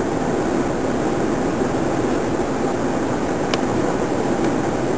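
Steady road and engine noise inside a car's cabin at highway speed, with one faint click about three and a half seconds in.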